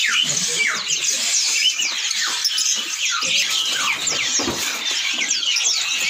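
Many caged songbirds chirping and twittering together, a dense overlapping chatter of quick, high, downward-sweeping chirps.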